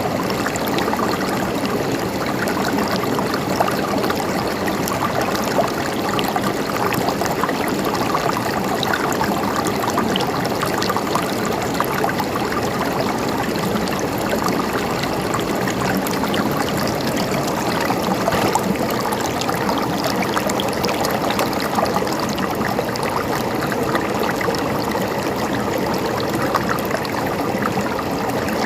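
Stream water trickling and gurgling steadily over stones, a dense even splashing.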